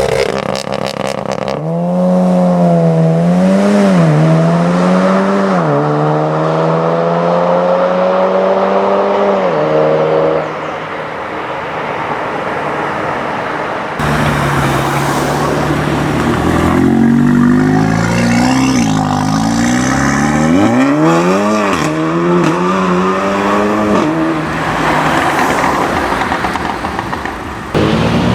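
Volkswagen Golf's turbocharged four-cylinder engine revving and accelerating, in several short clips cut one to the next. A rapid run of pops and crackles comes about a second in, then revs blip up and down twice and climb slowly in one long pull before dropping away; in the second half come more quick rev blips rising and falling.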